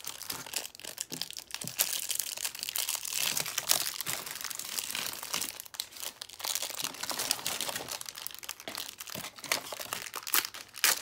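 Small crinkly plastic wrapper around a toy accessory being worked open by hand, with rapid irregular crackling and a few louder snaps.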